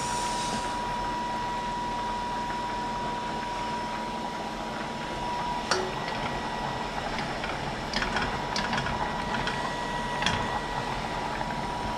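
A plastic spatula scraping and knocking against a frying pan while stirring a spinach sauce, with a few sharp clicks about halfway through and again near the end, over a steady hiss and a thin steady whine.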